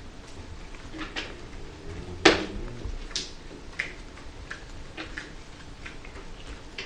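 Scattered light clicks and taps from desk-top handling of playing cards and pens, with one sharper knock about two seconds in.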